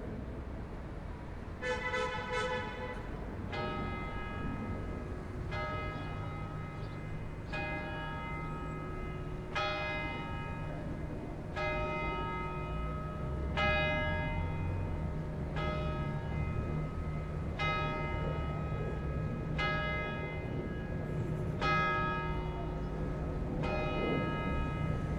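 Church bell tolling. A few quick strokes come about two seconds in, then single strokes about every two seconds, each ringing on and fading, over a low steady rumble.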